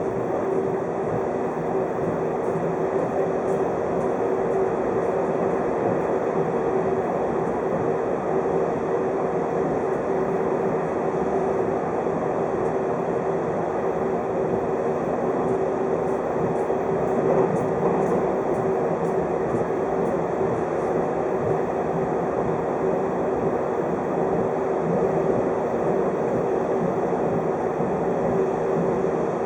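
A 583 series electric train running along the line, heard from inside the car: steady rolling noise of wheels on rail with a constant hum. A little past halfway through there is a run of light ticks.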